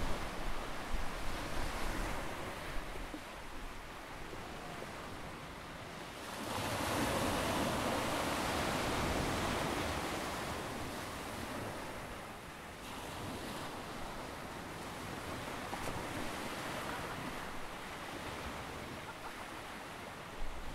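Ocean surf: waves breaking and washing up the shore in a steady wash of noise. One wave swells about six seconds in and ebbs away over the next several seconds, and a smaller one follows.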